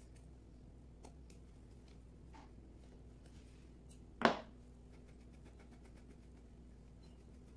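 Quiet hand work cleaning wild mushrooms with a knife and scrubber: faint scraping and scratching ticks, with one short, louder knock about four seconds in.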